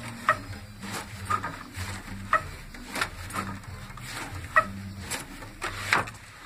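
Wooden treadle loom knocking and clacking as it is worked by hand: irregular sharp wooden knocks about once or twice a second, some ringing briefly, the loudest near the end. A low steady hum sits underneath.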